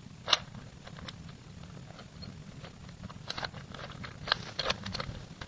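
Plastic Rubik's Cube faces being turned by hand: one sharp click early, then a quick run of irregular clicks and clacks as several turns follow one another near the end.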